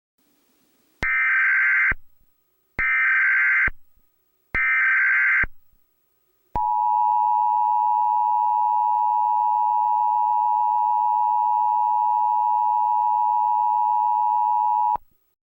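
Emergency Alert System broadcast header: three bursts of digital SAME data tones, each about a second long, then the steady two-tone EAS attention signal for about eight seconds, which cuts off sharply. It marks the start of an emergency alert message.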